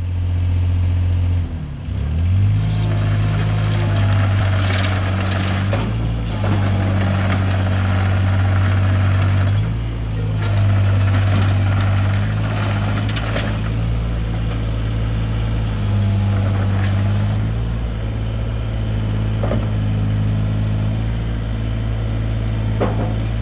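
Takeuchi TB016 mini excavator's diesel engine running while the boom, arm and bucket are worked, the hydraulics adding spells of several seconds of noise under load and the engine note shifting in pitch as they do. A couple of sharp metal knocks near the end.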